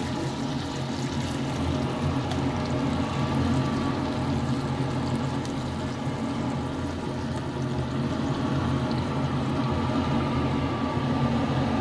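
Beef burger patties frying in fat in a nonstick pan: a steady sizzling hiss, with a steady low hum underneath.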